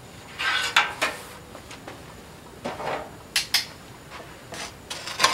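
Metal cooking utensils clinking and scraping in a string of separate short knocks and scrapes.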